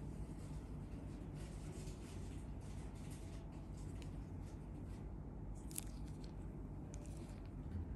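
Faint soft scratching and clicking of latex-gloved fingers pressing and rubbing on skin close to the microphone, with one sharper click about six seconds in, over a low steady hum.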